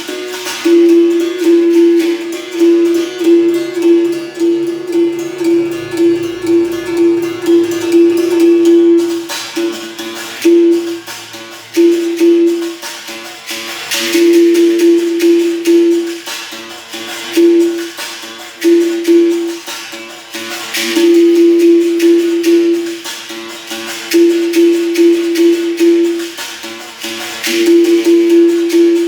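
Capoeira music: a berimbau's single buzzing note struck over and over in a repeating rhythm, with a shaken rattle and sharp strikes on top.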